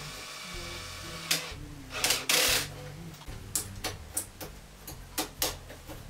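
Background guitar music over a cordless drill-driver running for about the first second as it backs screws out of the washing machine's rear panel. This is followed by a loud scraping rattle about two seconds in and several sharp clicks and knocks as the metal panel and screws are handled.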